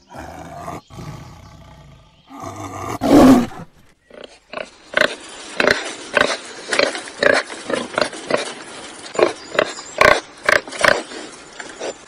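A tiger growls, then gives one loud roar about three seconds in. After that a warthog grunts in a rapid series of short calls, two to three a second.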